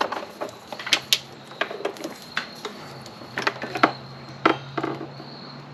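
Irregular light clicks and taps from small plastic wiring connectors and parts being handled and fitted together.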